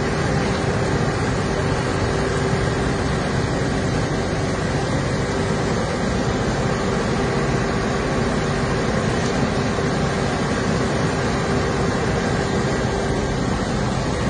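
Heavy farm engine, most likely a tractor, running steadily under load with a constant hum, as it dumps manure.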